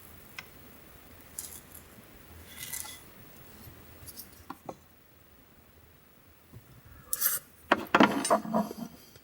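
Utensils clinking and scraping against a dish or pan: a few light clicks and a short rustle at first, then a louder run of clinks and scrapes near the end.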